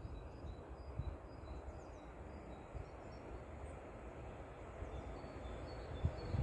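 Distant Arriva Stadler GTW diesel multiple unit approaching, its low rumble growing slowly louder in the second half. Small birds chirp in short high notes throughout, and a few low thumps sound near the start and end.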